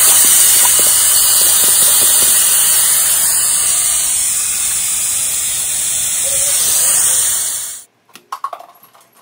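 Garden hose spray nozzle spraying water, a loud steady hiss that stops abruptly a little before the end, followed by a few faint clicks and rattles.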